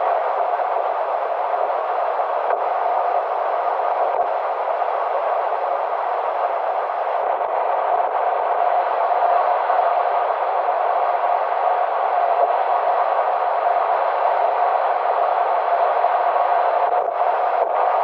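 Steady road and tyre noise of a car cruising on an expressway, heard from inside the car as an even hiss with no clear engine note.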